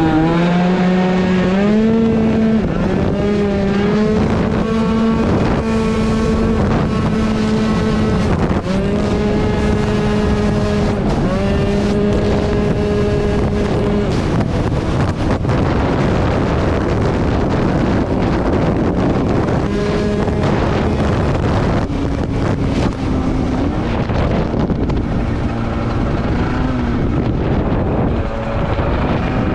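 A tuned 94cc two-stroke scooter engine (Polini Big Evo) revs up hard at the start, then holds high revs with several brief throttle lifts. In the second half wind buffets the microphone and partly covers the engine.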